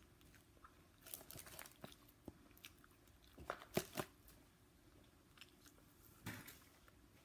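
Close, quiet eating sounds of fried chicken being bitten, torn and chewed: scattered faint crunches and clicks, the loudest two close together about halfway through and another near the end.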